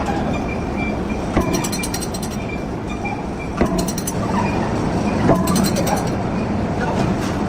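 Heavy lathe running, a steady mechanical hum with a faint high whine, broken by three sharp knocks and some metallic clinking.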